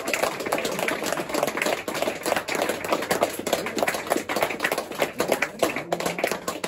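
Free-improvised music from cello, contrabass, tenor saxophone and drums: a dense, busy passage of irregular clicks and taps.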